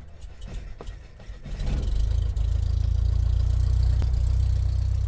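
Large piston aircraft engine starting: irregular coughs and pops, then it catches about a second and a half in and runs with a steady, deep note.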